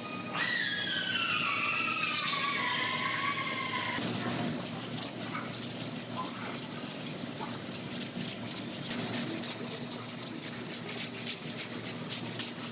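Sanding on a car's body panel. For the first few seconds a tool's whine falls in pitch; after that there is steady scratchy sanding with quick, regular strokes.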